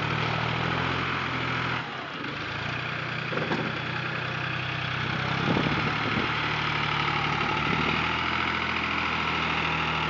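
Tractor diesel engine idling steadily. It falls away briefly about two seconds in, then carries on.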